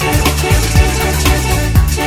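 Electronic background music with a deep bass line and a steady beat about twice a second.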